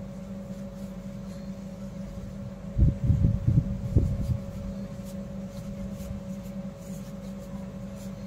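Steady low electrical hum, with a cluster of low thumps and bumps for about a second and a half starting near three seconds in: handling knocks against the work surface or recorder while hands pull cloth strips tight into a knotted chain.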